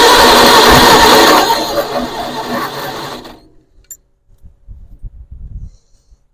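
Farmall Cub's electric starter cranking the four-cylinder engine for about three seconds without it firing, loudest at first and then dying away as the starter is released.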